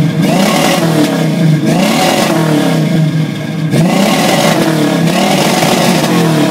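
1968 Pontiac Firebird's V8 being revved in a quick series of throttle blips, a little more than one a second, the exhaust note rising and falling in pitch each time.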